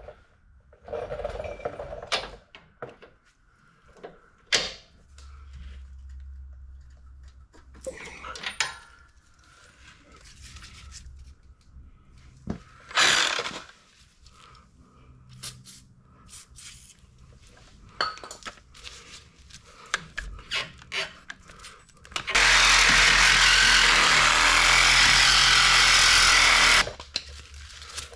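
Scattered knocks and clanks of tools against the suspension, then a power saw running hard for about four seconds near the end, cutting into a lower control-arm bolt that is frozen in its bushing; it cuts off abruptly.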